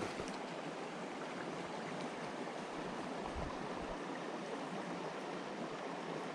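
Small creek's water running with a steady rush.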